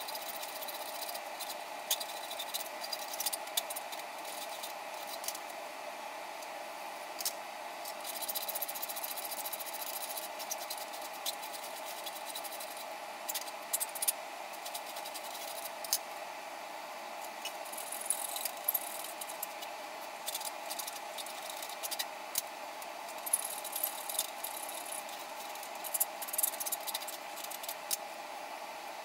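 Steel bar stock being handled and set in a small bench vise: scattered light metallic clicks and taps over a steady background machine hum.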